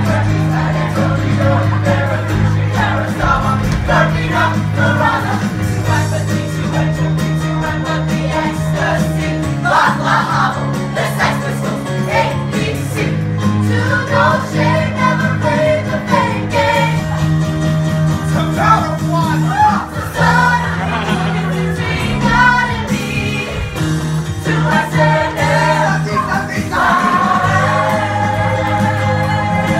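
A mixed ensemble of young male and female voices singing a musical theatre number together over an instrumental backing with a steady bass line.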